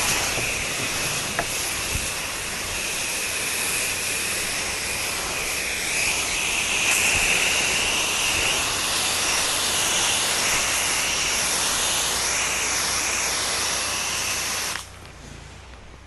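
Pressure washer spraying, a steady loud hiss of the water jet, that cuts off suddenly near the end as the spray stops.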